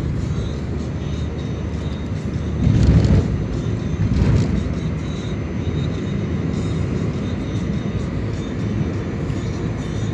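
Road and engine noise from inside a moving car, a steady low rumble with two brief louder swells about three and four seconds in.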